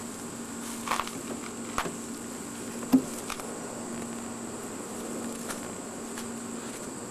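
A few short knocks on hollow plastic as a child climbs about inside a plastic play climber, the loudest about three seconds in, over a steady low hum and a thin high whine.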